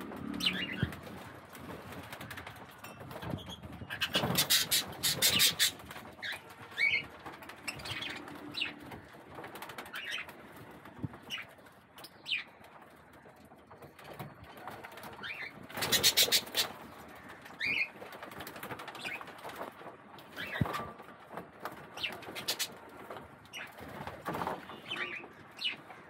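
Budgerigars bathing in a water bowl: two bursts of rapid wing fluttering and splashing, about four seconds in and again around sixteen seconds, with short chirps scattered throughout.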